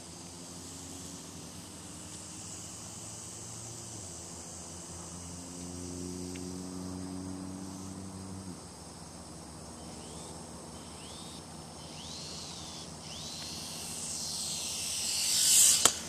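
Small electric motor and propeller of a micro RC biplane whining, rising and falling in pitch a few times, then swelling to its loudest as it passes close and dropping off sharply near the end. Insects chirp steadily underneath.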